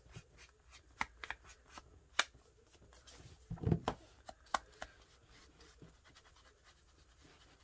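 Ink blending tool dabbed and rubbed along the edges of scrapbook paper: irregular soft taps and scratchy rubs. A louder bump and rustle about three and a half seconds in as the paper is handled.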